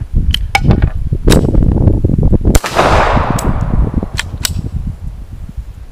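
Stallard Arms JS9 9mm pistol firing several shots at uneven intervals. The loudest comes about two and a half seconds in and rings out for about a second. There is a steady low wind rumble on the microphone.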